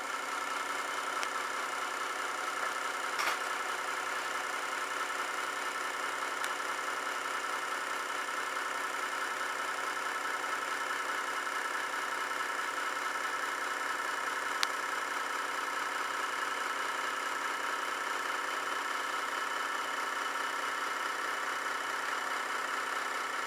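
Metal lathe running and taking a cut, a steady mechanical whir with a motor hum, with a sharp click about three seconds in and another about halfway through.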